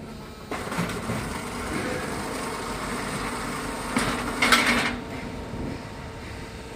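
Concrete block making machine running: a steady mechanical hum, with a louder clattering burst of strikes about four seconds in that lasts about a second.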